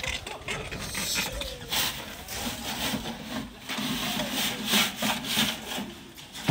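Rough, rasping scraping strokes, about two a second, of hand tools working through sand and gravel.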